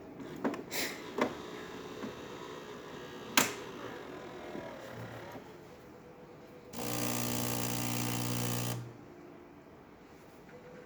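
A few light clicks, then the Saeco espresso machine's vibratory pump buzzing for about two seconds before cutting off abruptly: the short pump pulse at the start of an espresso shot.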